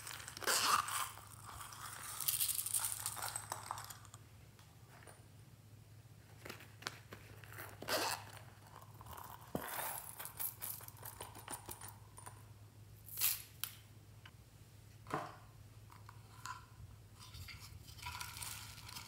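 Hands handling zippered plastic novelty pouches: a zipper rasps open in the first few seconds. Then come crinkling and scattered small clicks and taps as sequins, beads and plastic pieces are tipped out into a tray of slime. A faint steady low hum runs underneath.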